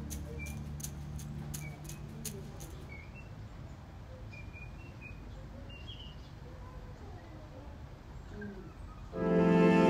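Faint outdoor ambience with small birds chirping in short, scattered calls. Music comes in loudly near the end.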